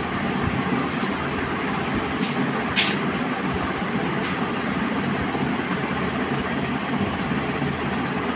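Steady rumbling background noise, with a few short faint clicks as the sliced apple's wedges are handled in a glass bowl, the clearest one near the middle.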